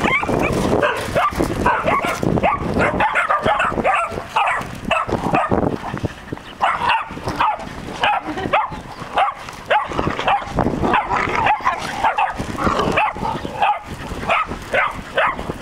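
A litter of Australian Shepherd puppies yipping and barking, many short high calls overlapping without a break.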